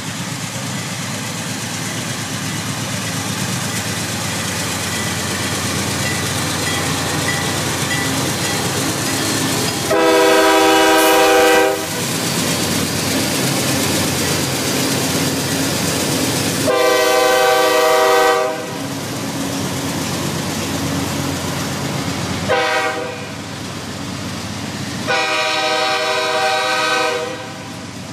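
CSX freight train with GE C40-8W diesel locomotives passing close by, its horn sounding two long blasts, one short and one long, the standard grade-crossing warning, starting about a third of the way in. Steady engine and wheel noise runs underneath, with wheel clatter as the boxcars follow.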